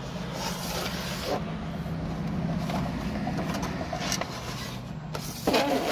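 Plastic blister packs of action figures clicking and crinkling as they are handled, over a steady low hum. A short, louder pitched sound comes near the end.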